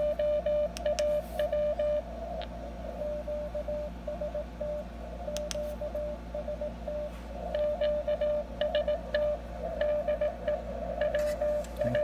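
Morse code (CW) from W1AW's code transmission played through an HF transceiver's internal speaker: a single steady tone keyed rapidly in dots and dashes over a hiss of receiver noise, with a few sharp clicks. The hiss drops about two seconds in as the receiver's noise reduction is switched on.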